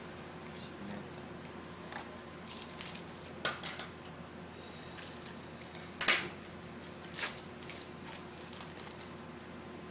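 Baseball cards handled and a foil Bowman card pack worked at by hand: scattered crinkles and snaps of card and foil, the sharpest about six seconds in.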